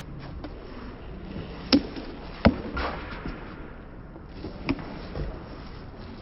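Sharp smacks of a small rubber handball during a one-wall handball rally, being struck by hand and rebounding off the wall and court. There are three loud smacks: one a little under two seconds in, one about half a second later, and one near five seconds, with a few fainter ones between.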